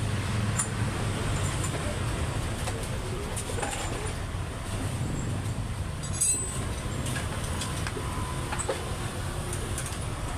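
Steady low mechanical rumble with a few faint, light metallic clinks scattered through it.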